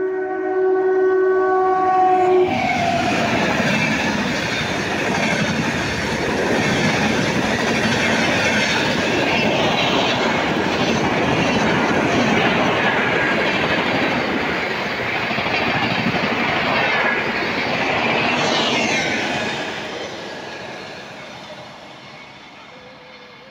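An express passenger train passing through the station at speed. Its locomotive horn sounds a steady note for the first two seconds or so, then the coaches go by in a loud rush and clatter of wheels on rail, which fades away over the last few seconds as the train recedes.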